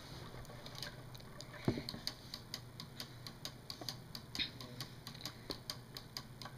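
Lego pendulum clock ticking fast and evenly, about four clicks a second, as its swinging pendulum strikes the escapement lever. One louder knock comes just before two seconds in.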